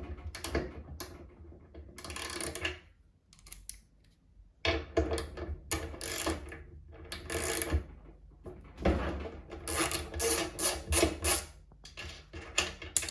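Ratchet wrench clicking in bursts as the nuts and bolts holding the drum bearing are undone, with short pauses between runs.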